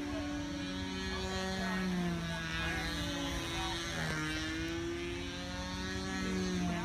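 Yatsenko Shark control-line stunt model aircraft flying its circle with its motor and propeller running steadily. The pitch rises and falls each time it sweeps past, dipping sharply about four seconds in and again near the end.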